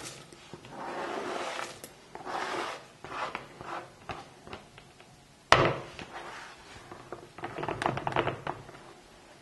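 Silicone spatula scraping chopped chocolate off a plastic cutting board into a plastic mixing bowl, the pieces rattling as they fall, with one sharp knock against the bowl a little past halfway. Near the end the spatula scrapes and stirs the chocolate into the cookie dough.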